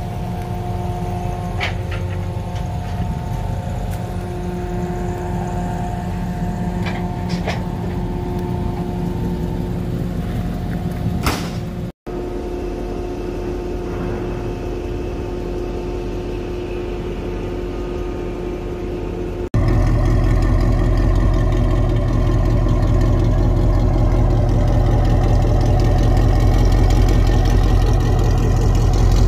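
Dodge Charger's V8 engine idling steadily, with a brief dropout a little before halfway. About two-thirds of the way through it turns abruptly to a much louder, deeper idle rumble.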